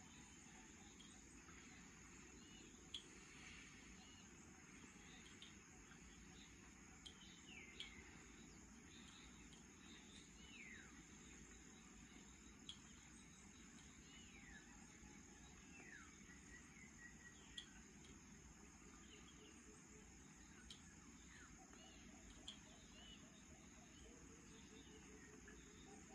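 Faint evening countryside ambience: a steady high insect drone, with several short falling bird whistles and scattered light ticks over a low, even background hiss.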